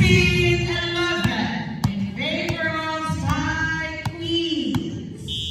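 Several women's voices singing in long held notes, about three phrases. Between them come about five sharp knocks, like a volleyball bouncing on the hard gym floor.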